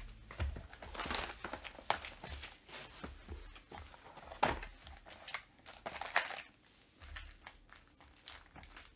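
Cardboard trading-card boxes and packaging being handled and a box lid opened: irregular crinkling and rustling with scattered light knocks.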